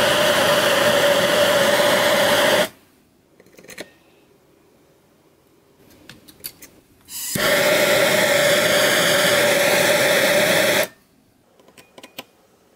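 Gas torch burning with a loud, steady hiss and a steady hum, shut off abruptly about two and a half seconds in, then a few light metallic clicks. The torch hisses again for about three and a half seconds from about seven seconds in, stops abruptly, and more light clicks follow.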